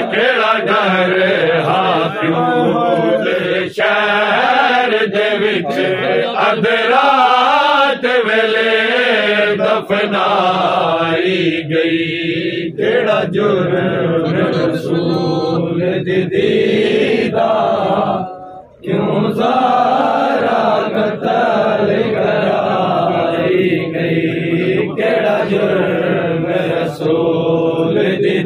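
Men's voices reciting a noha, a Shia mourning lament, as an unaccompanied chant with sliding, melismatic lines, broken by a brief pause about two-thirds of the way through.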